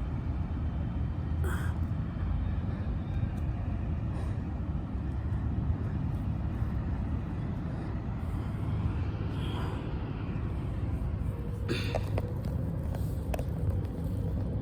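Steady low rumble of outdoor ambience, with a few faint clicks.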